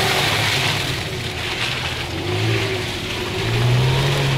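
Mitsubishi Pajero Sport's engine working under load as the SUV pushes through deep mud ruts, revs rising about three and a half seconds in.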